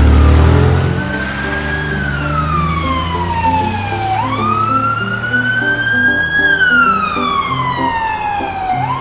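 Ambulance siren wailing: a slow tone that falls, rises and falls again over a few seconds each way, over light background music.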